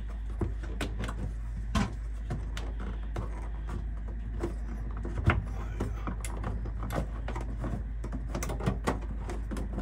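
Clicks and knocks from the crank mechanism of an RV roof vent fan as its lid is wound open by hand. They come scattered and irregular, a few each second.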